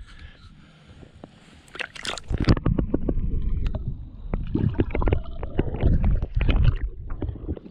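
Water sloshing and gurgling around a camera dipped under a pond's surface, heard muffled through the water, with many knocks and splashes. It starts about two seconds in and stops shortly before the end.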